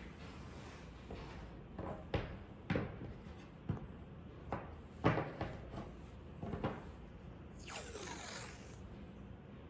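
Paper masking tape being handled: a string of short, sudden rustles and scrapes, with one longer sweeping sound about eight seconds in.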